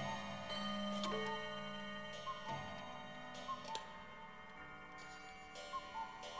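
A clock ticking, over sustained ringing tones that hold and overlap, with a new tone coming in about a second in.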